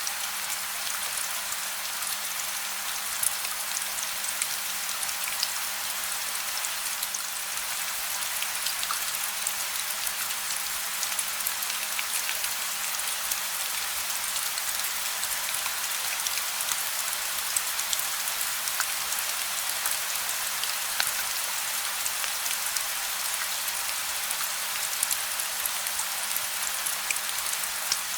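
Steady gentle rain: an even hiss with scattered sharp ticks of individual drops striking.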